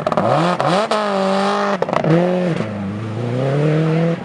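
Rally car engine accelerating hard through the gears: two quick rising sweeps in the first second, a brief lift with a couple of sharp pops near two seconds, then pulling again with the pitch climbing slowly toward the end.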